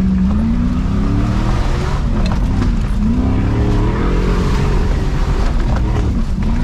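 Demolition derby vehicle's engine running hard, its pitch repeatedly climbing and dropping as it accelerates and lets off, with a few short knocks along the way.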